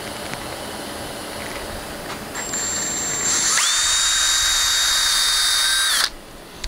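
Ryobi cordless drill running: a faint high whine starts about two and a half seconds in, then the motor spins up to a loud, steady high whine for about two and a half seconds and stops suddenly.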